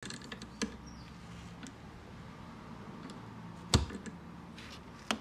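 Clicks and knocks from a wooden cantilever art box's carry handle and its metal fittings being moved against the wooden lid: a few light clicks at first, then a sharp knock a little past the middle and another near the end.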